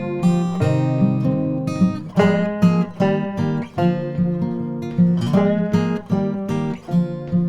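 Acoustic guitar music, strummed in a steady rhythm with picked melody notes, in a country or bluegrass style.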